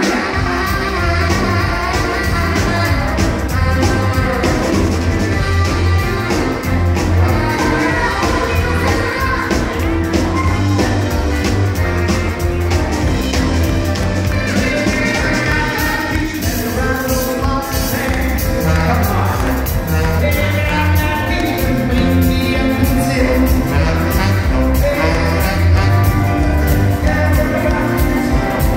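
Live band playing up-tempo country rock-and-roll with a singer over electric bass and a steady drum beat, loud and without a break.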